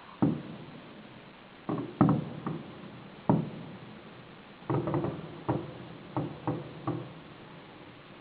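Fireworks exploding: about a dozen dull, irregular bangs, each with a short echoing tail, the loudest two about two and three seconds in, then a quick run of bangs in the second half.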